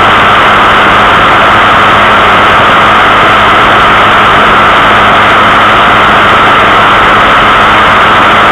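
Loud, steady running noise of a small geared vehicle on the road, picked up by a camera mounted low on it: drive noise mixed with rushing air, with a faint low hum that fades about a second in.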